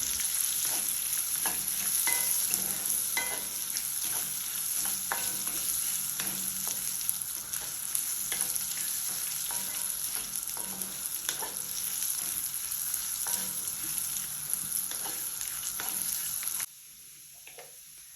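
Oil sizzling in an iron kadai as groundnuts, cashews, roasted gram and curry leaves roast, with a spatula scraping and knocking against the pan about once a second as they are stirred. The sizzle cuts off suddenly near the end.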